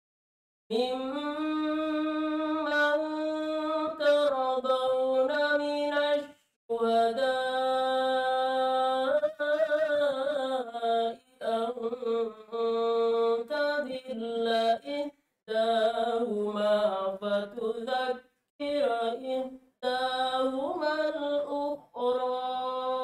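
A woman reciting the Quran in a melodic chant, with long held notes that bend slowly in pitch, broken by short pauses for breath. The recitation begins just under a second in.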